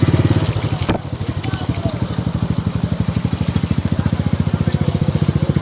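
Small vehicle engine running with a fast, even beat. It drops in level about a second in, then builds back up.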